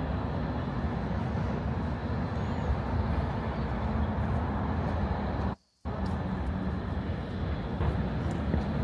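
Steady outdoor city ambience of road traffic, a continuous low noise, broken by a brief gap of silence a little past halfway.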